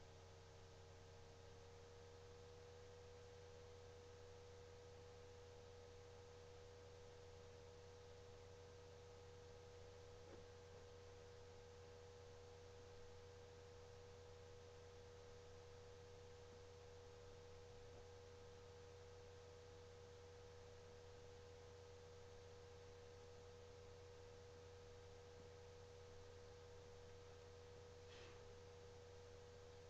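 Near silence: room tone with a faint steady hum and a thin steady whine, and a few very faint ticks.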